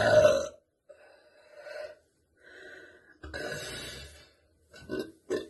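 A woman's loud burp trails off in the first half-second, followed by breaths and short gasps between burps, the strongest of them about three seconds in and two short ones near the end.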